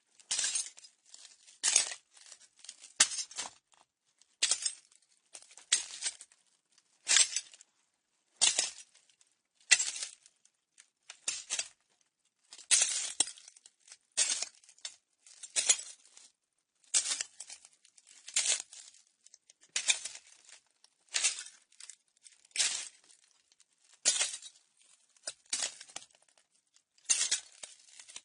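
Slow footsteps crunching on broken glass, one step a little over every second, each a sharp crunch of grinding shards followed by faint tinkles.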